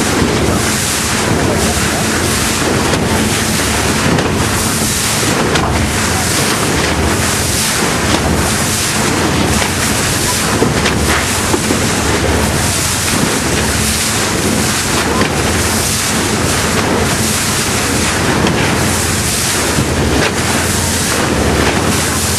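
Wind buffeting the microphone in gusts over the rush of sea water along a boat under way, with a steady low hum underneath.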